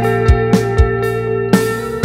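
Recorded band music: sustained guitar chords over a drum kit, with drum hits every quarter to half second.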